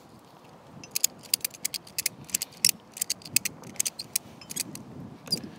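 Ratchet tension strap being cranked tight: a quick run of sharp ratchet clicks, about four a second, starting about a second in.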